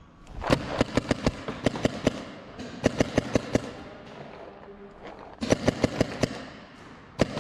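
Paintball markers firing in rapid volleys of sharp pops, four bursts of several shots each.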